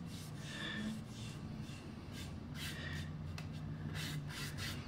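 Foam brush stroking liquid oil-based wood stain across a flat wooden plaque: a series of soft, irregular swishing rubs.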